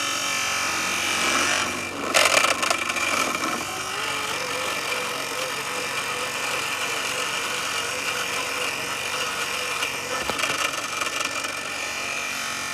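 Robotic lawn mower running, the steady whine of its electric motors going on, with a brief burst of rattling about two seconds in.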